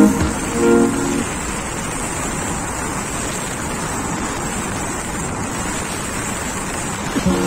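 Steady rushing wind and road noise from a motorcycle ridden at about 85 km/h, with no clear engine note standing out. Background music plays for about the first second and comes back near the end.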